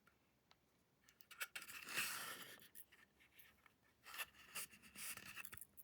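Candy packaging crinkling and rustling as it is handled or torn, in two spells, about a second in and again about four seconds in.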